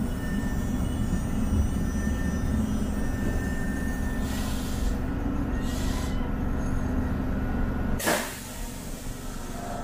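LRT-1 light rail train running with a steady low rumble, with brief patches of hiss; about eight seconds in comes a sudden sharp hiss, and the rumble then drops away.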